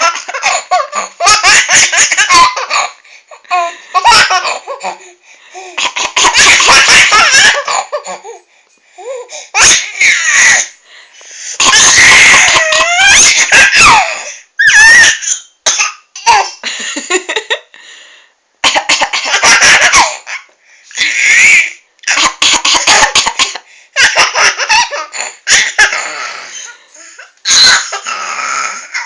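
A small child laughing in repeated loud fits, breaking off and starting again every few seconds, with a woman's coughs mixed in between: the coughing is what sets the child laughing.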